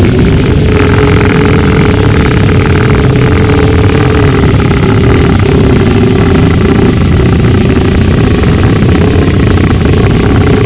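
Gorenoise: a loud, dense wall of distorted noise over a steady droning tone that glides up slightly at the start.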